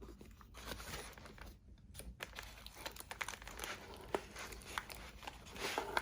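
Watch packaging being handled and unwrapped: irregular crinkling and rustling with small sharp crackles.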